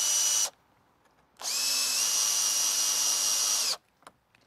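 Cordless drill driving a screw through a mounting bracket into a timber board. The motor whine stops about half a second in, then runs again for about two and a half seconds, stepping up in pitch as it starts, and cuts off sharply.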